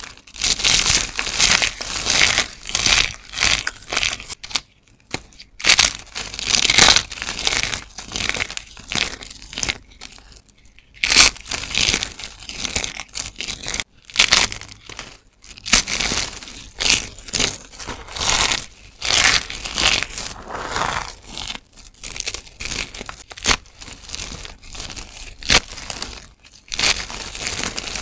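Hands crushing and crumbling crunchy carved soap bars and thin soap plates into flakes: dense crunching and crackling in repeated bursts, with short pauses between squeezes.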